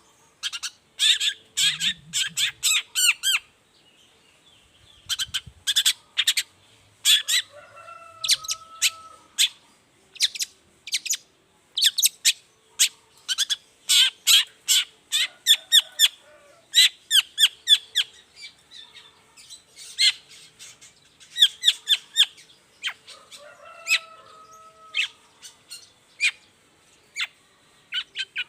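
Long-tailed shrike (cendet) singing: quick runs of short, sharp chattering notes in repeated bursts, with a lower sliding whistled note twice.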